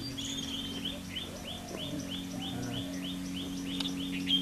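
A bird calling a short chirp over and over at an even pace, about three a second, over a steady low hum.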